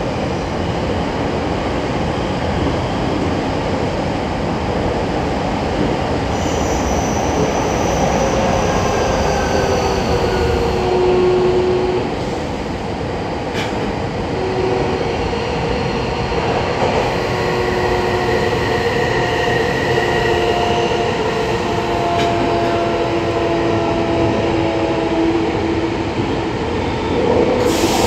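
A Tokyo Metro 8000 series subway train running between stations, with a steady rumble of wheels on rail. Thin, high whining and squealing tones from the wheels come and go through the middle, and the sound gets louder near the end.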